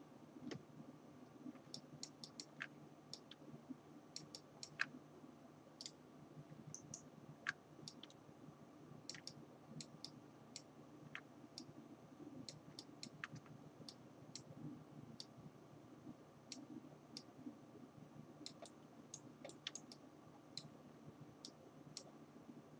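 Faint, irregular clicking of a computer mouse and keyboard, roughly two clicks a second, over a low steady hum.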